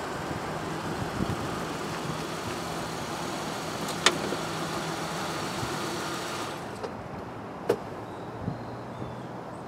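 A car's engine running with a steady hum as the car pulls up and stops, dropping away about six and a half seconds in. Sharp clicks come about four seconds in and again near eight seconds in.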